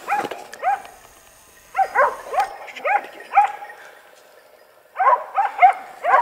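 Hunting dogs barking on a wild boar hunt: short yelping barks that rise and fall in pitch, coming in three bunches with pauses between.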